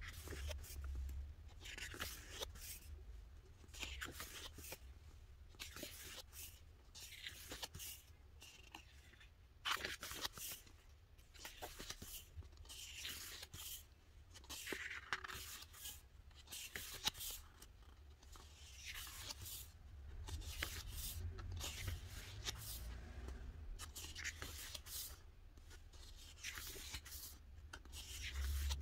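Thick glossy pages of a photo book being turned one after another, each turn a short papery swish, coming every second or two with light rustling of the paper in between.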